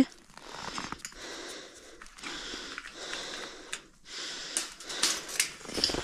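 A person breathing and sniffing close to the microphone, with a few faint irregular clicks.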